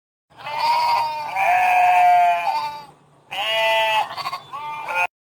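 Sheep bleating: a string of drawn-out, wavering calls, with a short pause about three seconds in before two more calls.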